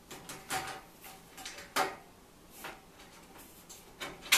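LED replacement tube being fitted into a fluorescent fixture's lampholders: a series of plastic scrapes and clicks as the pins go into the sockets, the sharpest click near the end.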